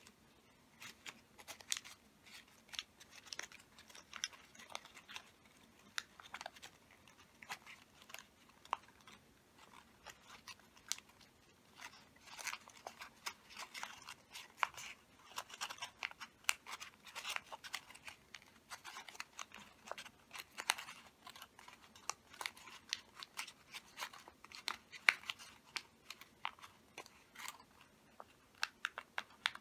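Square sheet of origami paper being folded and pressed into creases by hand: a continual run of crisp paper crackles and rustles.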